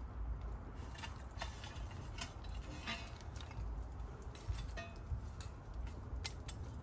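Oak wood fire and embers crackling, with irregular sharp pops and snaps over a low rumble.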